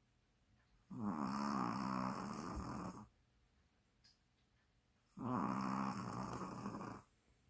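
A dog snoring: two long snores of about two seconds each, the first about a second in and the second about five seconds in, with near quiet between them.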